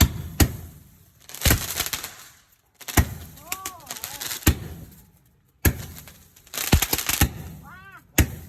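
Fireworks going off: a string of sharp bangs, some trailing into crackling, about eight over the stretch. Short tones that rise and then fall in pitch come twice, about three and a half seconds in and near the end.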